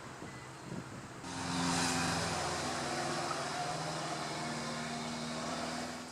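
A vehicle's engine or motor running, a steady hum with noise, coming in abruptly about a second in and easing off near the end.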